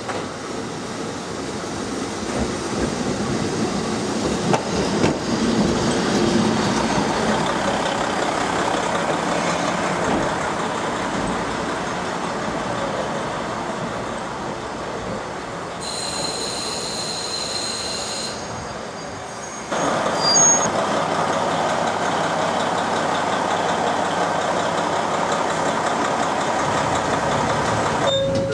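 A JR Hokkaido KiHa 40 diesel railcar pulls in alongside a station platform, its wheels and brakes squealing as it slows. After about twenty seconds the sound changes abruptly to the railcar's engine and wheels heard from on board.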